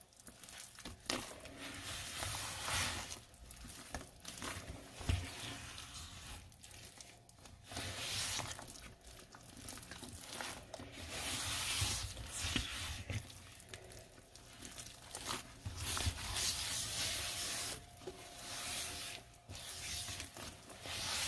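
A sponge scrubbing a thick paste of Comet cleanser, baking soda and lemon around a stainless steel sink, in irregular wet rubbing strokes with short pauses between them.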